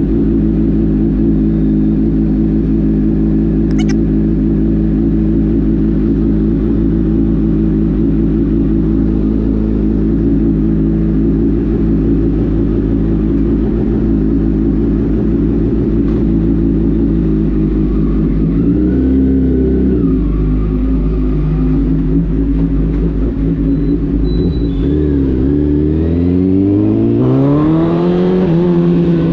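Honda CBR1000RR inline-four through an Arrow aftermarket exhaust, idling steadily, with a short blip of the throttle about two-thirds of the way through and the revs climbing near the end.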